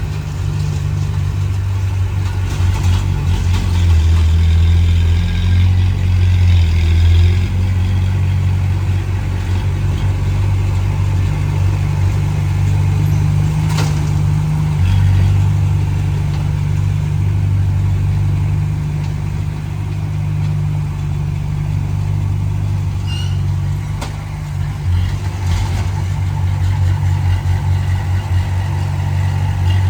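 Komatsu D20P bulldozer's diesel engine running continuously, its note swelling under load twice and easing back between pushes. A single sharp knock sounds about halfway through.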